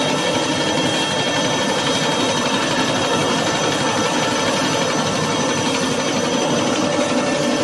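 Paper sheeting line that cuts A4 reams from web rolls, running: a loud, steady mechanical running noise from its belts, rollers and cutting section, with a few faint steady whining tones in it.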